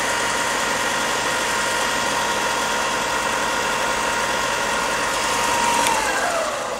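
Bench belt sander with a 60-grit belt running steadily. About six seconds in it is switched off with a click, and its motor winds down in falling pitch.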